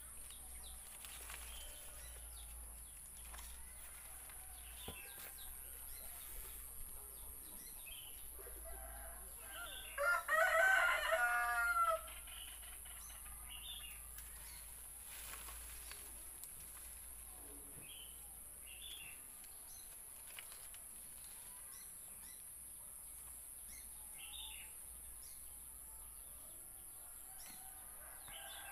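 A rooster crows once, about ten seconds in, a single call of some two seconds, with scattered short bird chirps around it.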